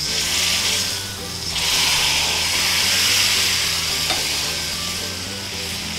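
Hot tempering oil with dried red chillies, curry leaves and fried spices poured from a small kadai onto a tamarind vegetable stew, sizzling as it hits the liquid. The sizzle eases briefly about a second in, then comes back stronger.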